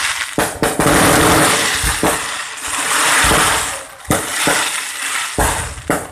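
Aerial fireworks display: shells bursting overhead in a series of sharp bangs at irregular intervals, with a dense crackle filling the gaps between them.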